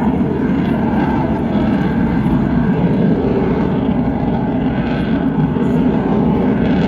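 Lockheed Martin F-22 Raptor's twin Pratt & Whitney F119 turbofan jet engines at high power, a loud, steady jet noise with no clear pitch.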